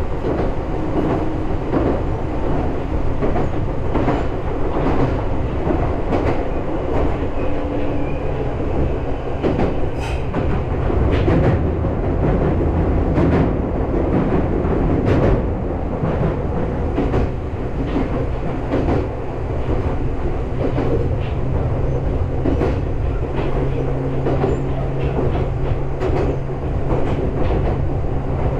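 Meitetsu electric train running along the line, heard from inside the driver's cab: a steady rumble of wheels on the rails with repeated clicks over the rail joints and a low, steady hum.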